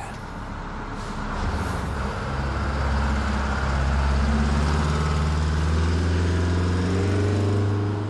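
Diesel semi-truck engine running with a low, steady note, getting louder over the first few seconds.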